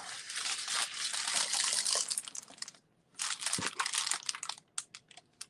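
Clear plastic film on a diamond painting canvas crinkling as it is handled. The crinkling comes in two stretches with a short pause about three seconds in, followed by a few light clicks near the end.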